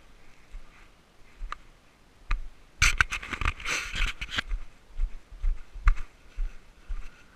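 Footsteps crunching on loose rock scree at about two steps a second, with a louder stretch of scraping and crunching of stones about three seconds in.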